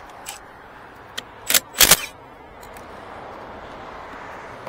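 Clatter of hand tools and cable fittings at a car battery while wires are undone with a 13 mm socket: a few light clicks, then two loud short knocks about one and a half and two seconds in.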